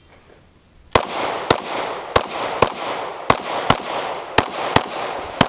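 Glock 26 subcompact 9mm pistol fired rapidly in pairs, starting about a second in: nine sharp shots, two about half a second apart, then the next pair about a second later, each shot echoing.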